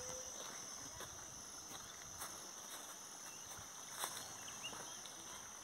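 Steady, high-pitched drone of an insect chorus, with a faint click about four seconds in.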